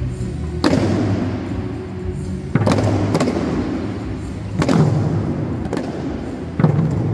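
Eisa drum dance: small handheld drums struck with sticks in sharp hits every second or two, echoing in a gymnasium, over recorded Okinawan music with a steady bass line.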